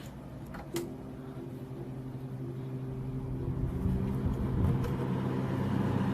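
Arctic King 5000 BTU window air conditioner switched on with a click about a second in, then starting up on low: a steady electric hum that grows gradually louder as the unit comes up to speed.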